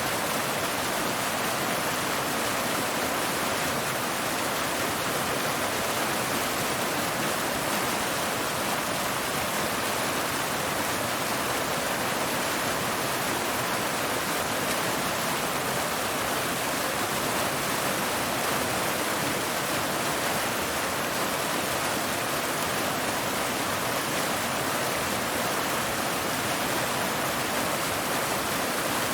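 Waterfall cascading over rocks: a steady, unbroken rush of water.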